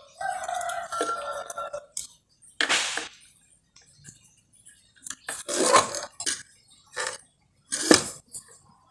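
Hands working the wiring inside an opened active speaker: rustling of wire bundles and clicks and clinks of plastic connectors and the metal bracket, the sharpest click near the end. A short steady tone sounds for the first two seconds.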